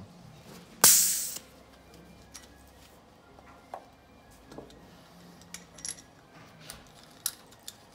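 Compression tester venting its trapped pressure through the release valve: one short, loud hiss about a second in. This follows the cylinder-two reading. Afterwards there are light clicks and taps as the gauge hose and its fitting are handled.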